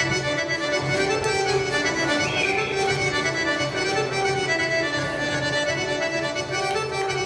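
Serbian folk dance music led by an accordion, playing sustained chords and melody over a steady low bass note; it strikes up abruptly.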